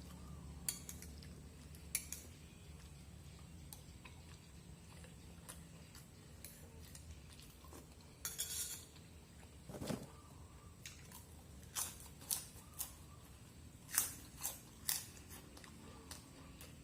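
Scattered light clicks and knocks of small hard objects, with a short hiss about eight seconds in and a duller knock about two seconds later.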